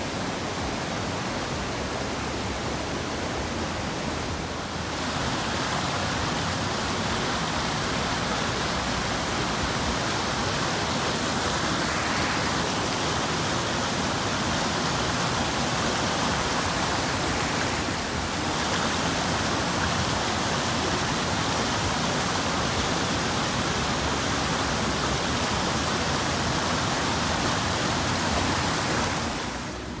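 Steady rush of water from a waterfall and the rapids of the rocky mountain stream below it, a dense, even hiss. The tone brightens slightly about five seconds in and dips briefly near eighteen seconds.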